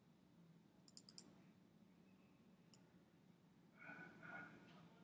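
Faint computer mouse button clicks: a quick cluster of about four clicks about a second in and a single click near three seconds, over a low steady hum. A brief faint sound comes about four seconds in.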